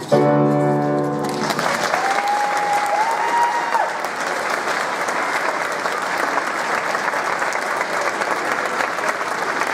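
A children's choir with accompaniment holds the song's final chord, which cuts off about a second in. An audience then applauds steadily to the end.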